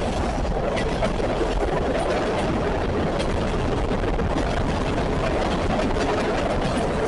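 CSX freight train rolling past, a steady rumble of wheels on rail with a few faint clicks.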